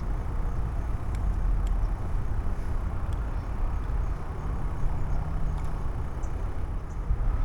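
Wind buffeting the microphone outdoors: a steady, uneven low rumble with a few faint high ticks.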